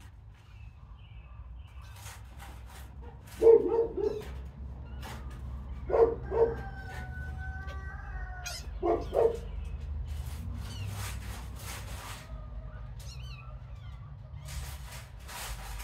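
A dog barking: three pairs of short barks, a couple of seconds apart, with scattered light clicks and rustles between them.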